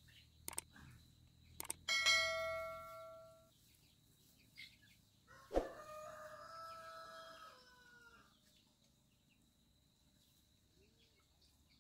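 Rooster crowing twice. The first crow is the louder and comes about two seconds in; the second is longer and drops in pitch at the end. A few sharp knocks come before and between the crows.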